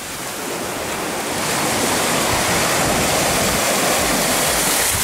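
Shallow surf washing in around a landed shark and people's legs at the water's edge, a steady rush of water that swells louder about a second and a half in.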